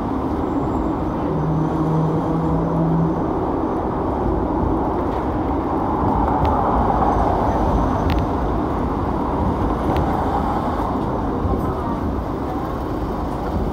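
A Hong Kong double-decker tram running along its tracks, heard from on board: a steady rumble and rattle of the moving car, with a few light clicks around the middle.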